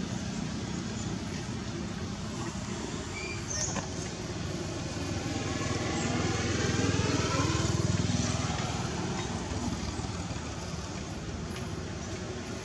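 Steady motor-vehicle engine and road noise, swelling as a vehicle passes about six to eight seconds in.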